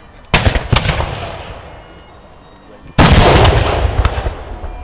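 Black-powder muskets firing: two shots about half a second apart near the start, then a louder, ragged volley of several shots about three seconds in, each trailing off slowly.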